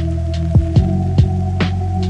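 Instrumental chillhop beat: a held low bass drone and steady synth tones under deep drum hits that drop in pitch, three in quick succession, with a sharper hit near the end.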